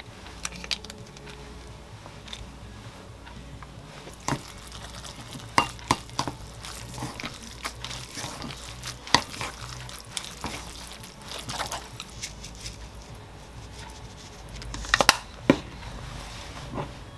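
Wooden chopsticks mixing oil-dressed noodles in a ceramic bowl: soft wet squishing with scattered sharp clicks of the chopsticks knocking the bowl, a few louder clicks close together near the end.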